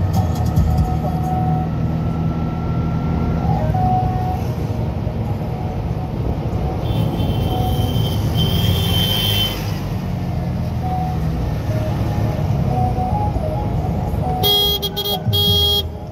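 Road traffic on a busy expressway: a steady rumble of passing vehicles, with a car horn sounding several short toots near the end.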